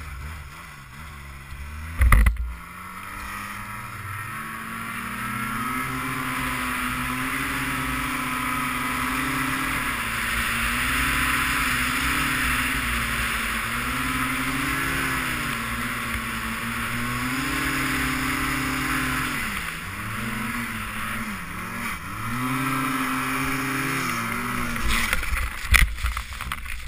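Arctic Cat M1100 Turbo snowmobile's turbocharged four-stroke engine revving up and held at high revs on a steep snow climb, its pitch wavering and dipping with the throttle, over a steady hiss of wind and snow. There is a sharp knock about two seconds in. Near the end the engine note drops away and sharp knocks follow as the sled rolls over in the snow.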